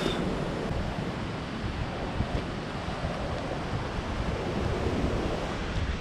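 Ocean surf breaking and washing over a pebble beach, a steady noisy rush, with wind buffeting the microphone.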